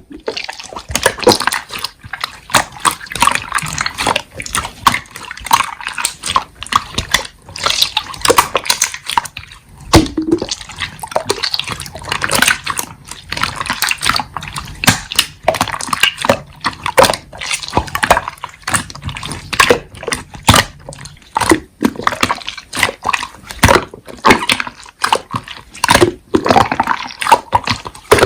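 Slime being squished and pressed by hand, a dense run of wet clicks and small pops.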